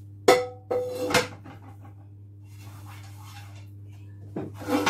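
Frying pan and spatula clanking on the hob as a pancake is turned: three sharp knocks in the first second or so, the first with a brief metallic ring, then two more knocks near the end. A steady low hum runs underneath.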